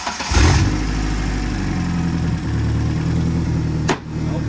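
Ford Ranger pickup engine catching about half a second in, at the end of a starter crank, and settling into a steady idle, running on peanut oil in place of motor oil. A single sharp click comes near the end.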